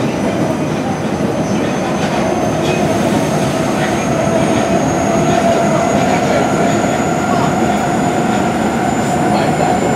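Osaka Metro 23 series subway train (Mitsubishi GTO-VVVF) running between stations: a steady rumble of wheels on rail with a whine that rises slowly in pitch.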